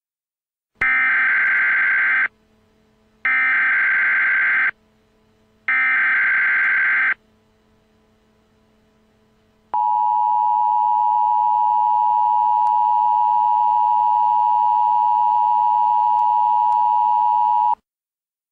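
Emergency Alert System broadcast tones: three short bursts of SAME digital header data, each a harsh warbling screech about a second and a half long, then the steady two-tone EAS attention signal held for about eight seconds before it cuts off.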